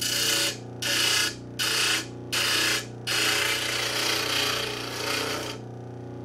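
Disc sander motor running with a steady hum while the steel tips of over-long screws are ground down against the sanding disc. There are four short grinding passes, then one longer pass of about two and a half seconds, and after that the motor runs alone.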